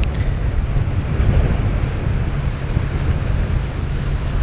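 Wind buffeting the microphone, a heavy fluttering rumble, over the steady wash of sea waves on shore rocks.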